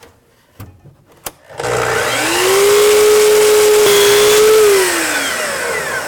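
Sliding compound miter saw starting up about a second and a half in, its whine rising to full speed and holding steady as the blade is brought down through a length of stain-grade molding to cut a miter. After the cut the motor is released and the blade winds down with a slowly falling whine.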